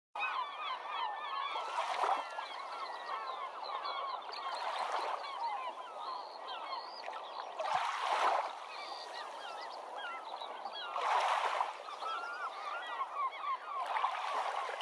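A large flock of birds calling all at once, a dense chatter of many short overlapping calls. A louder swell of noise rises and falls about every three seconds.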